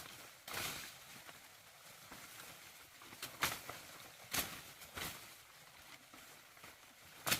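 A few irregular sharp knocks and taps, several seconds apart, with light rustling between them.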